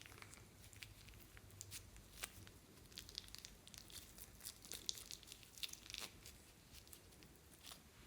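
Clear slime being handled and pulled, giving faint, irregular sticky crackles and clicks, busiest in the middle few seconds.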